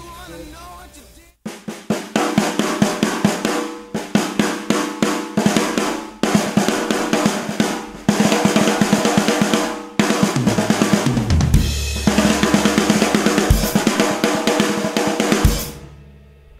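Acoustic drum kit played hard: a fast snare-driven groove with bass drum and cymbals, starting about a second and a half in and stopping shortly before the end. Cymbals and bass drum grow heavier in the second half.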